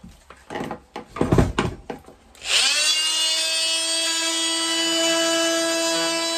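Clatter of the tool and a plastic pipe fitting being handled. About two and a half seconds in, a DeWalt oscillating multi-tool is switched on: its motor spins up quickly and then runs with a steady whine.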